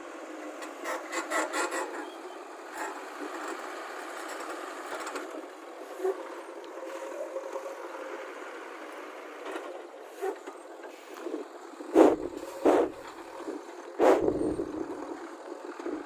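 Heavy machinery working on a road site: a steady mechanical noise with scraping and rattling. There is a quick run of clicks near the start and three loud knocks about twelve, thirteen and fourteen seconds in.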